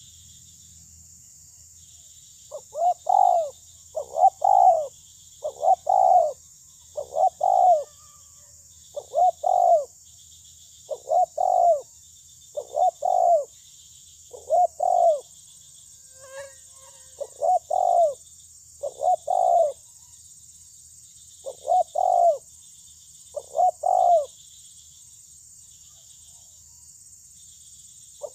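Spotted dove cooing: about a dozen short phrases of two or three notes each, roughly one every one and a half seconds, with a pause about halfway and a longer one near the end. Insects chirp steadily in the background.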